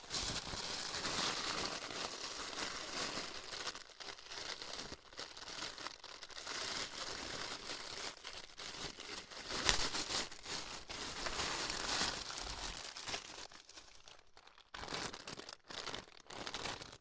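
Packaging being crinkled, rustled and torn as a package is handled and pulled open, in irregular rustles that become sparser near the end.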